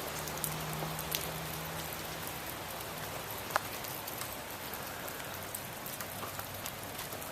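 Heavy wet snow falling and melting, a steady hiss with scattered light ticks of flakes and drips hitting surfaces.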